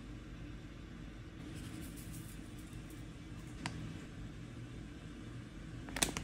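Steady low hum of the kitchen, with a light click about three and a half seconds in and a sharper double click near the end from a measuring spoon knocking against a ceramic mixing bowl.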